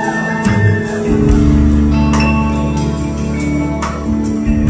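A live band playing an instrumental passage: electric guitar and sustained chords over bass and drums, with cymbal strikes about half a second, two seconds and four seconds in.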